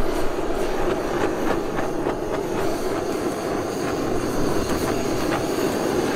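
Handheld butane torch burning with a steady roaring hiss, aimed at cheese-topped bread, with light crackling through it.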